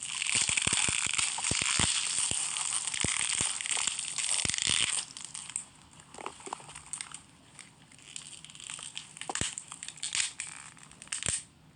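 Celery and carrots being crushed, ground and snapped as foley for bones being crushed and cracked. A dense run of crunching and cracking lasts about five seconds, then gives way to sparser single cracks and crunches.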